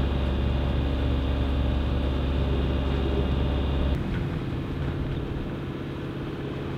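A sailboat's inboard engine running steadily under way in a calm: a steady drone with a strong low hum. About four seconds in the sound shifts to a somewhat quieter, slightly different drone.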